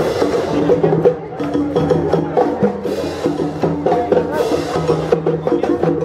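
Marching band playing: brass and bell lyres carry a melody in held notes over a steady beat of drums.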